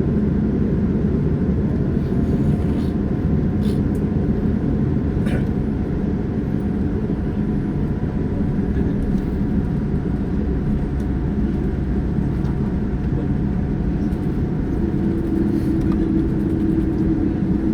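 Cabin noise inside a Boeing 787-9 airliner: a steady, even rumble of the engines and airflow. A steady hum joins in near the end.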